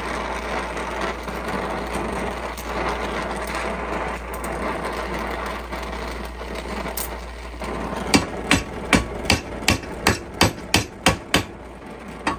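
Gas torch flame hissing steadily on a Mauser bolt handle clamped in a vise. From about eight seconds in comes a regular run of sharp hammer strikes on metal, a little over two a second, as the heated handle is worked into its reverse sweep.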